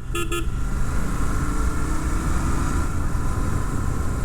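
Royal Enfield Continental GT 650's 648 cc parallel-twin engine running on its stock exhaust while riding, heard through a helmet-mounted mic as a steady low rumble mixed with wind noise. Two short beeps sound near the start.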